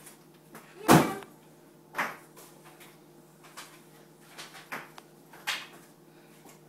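A car door being worked by hand: one loud thump about a second in, then several sharper clicks and knocks from the handle and latch.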